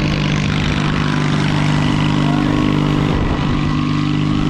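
Riding lawn mower engine running at a steady speed, its pitch holding level throughout.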